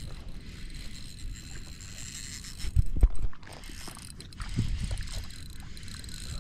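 Rumbling handling noise from a fishing rod and reel while a hooked fish is being played, with a few knocks about three seconds in and again near five seconds.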